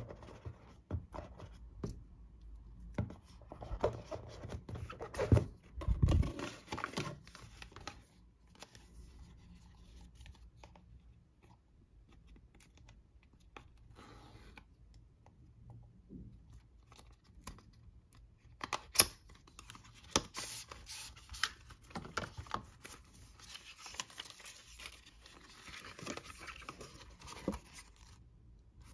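Cardboard box and paper insert of a watch band being handled and opened: scattered rustles, scrapes and taps, with louder bursts of rustling a few seconds in and again about two-thirds of the way through.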